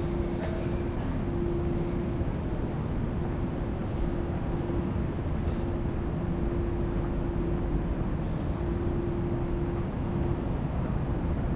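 Steady rumbling background noise with a faint mid-pitched hum that fades in and out.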